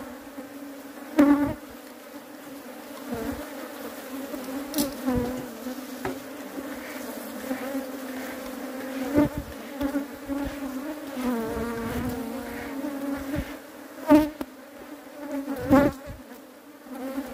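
Honeybees buzzing in a steady hum around an opened hive during a honey harvest, with a few sharp knocks, about a second in and twice near the end.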